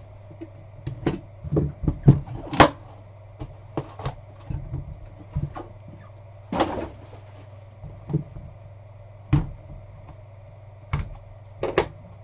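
Cardboard trading-card hobby box and its packaging being handled and opened on a tabletop: irregular knocks, taps and scrapes, the loudest a couple of seconds in and again past the middle.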